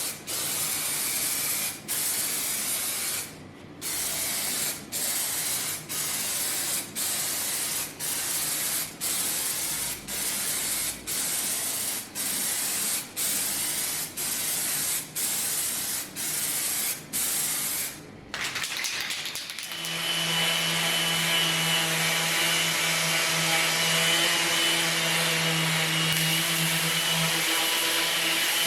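Sprayer hissing in a run of passes, about one a second, each broken by a brief pause. About two-thirds of the way through, a steady motor hum with a whine takes over, like a power tool running.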